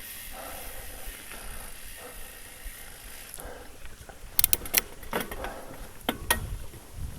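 Trek Fuel EX mountain bike rolling along a dirt trail with a steady rolling hiss, then clattering over rough ground about four seconds in: a string of sharp knocks and rattles from the bike.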